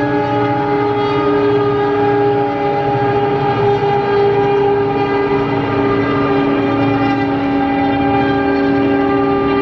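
Twin ALCO diesel locomotives hauling an express under power: a loud, steady drone from their turbocharged engines with a sustained whine over it, holding without a break.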